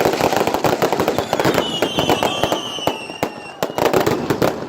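Fireworks going off in a rapid volley of bangs and crackles. From about a second in to past the middle, high whistles slowly fall in pitch.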